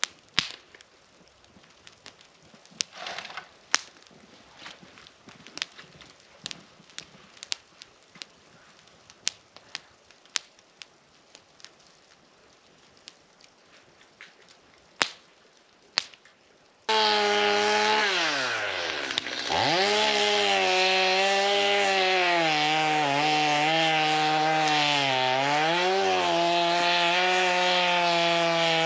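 Scattered light clicks and knocks, then more than halfway through a Stihl two-stroke chainsaw cuts in abruptly at high revs. Its pitch sags and recovers several times as it bucks firewood logs.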